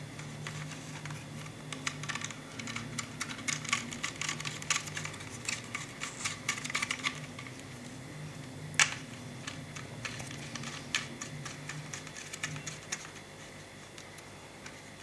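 Quick small plastic clicks and taps from handling a TP-Link TD-W8961ND router while fitting its two antennas onto the connectors at the back. One sharper click comes about nine seconds in, over a faint low hum.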